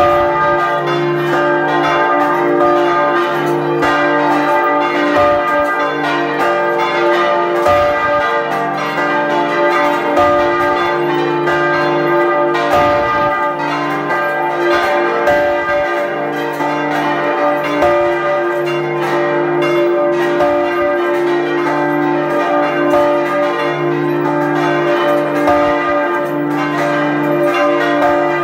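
A full peal of large church bells swinging together, heard close up from inside the belfry. Their strikes overlap into a loud, continuous ringing with many pitches sounding at once.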